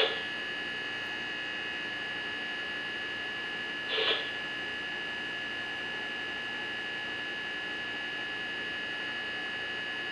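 Steady electrical hum and whine: a few fixed high tones over a faint hiss, interrupted once by a short burst about four seconds in.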